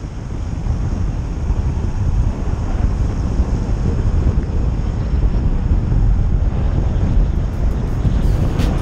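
Car driving along a road, heard as heavy wind buffeting and road rumble on a car-mounted camera's microphone, building up over the first couple of seconds and then holding steady. A few sharp clicks near the end.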